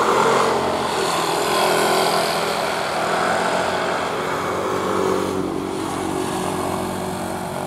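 Motorcycle traffic running past on a road, a steady mix of small engines.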